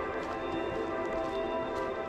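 Background music of held, sustained chords at a steady level.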